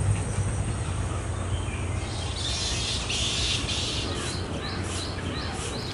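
Birds calling in a nesting colony: a dense burst of calls about two seconds in, then a run of short chirps repeated two or three times a second, over a low steady hum.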